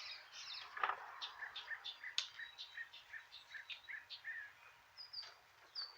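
Faint bird chirping: a quick run of short, repeated chirps, about three a second, thinning out near the end, with a couple of small clicks among them.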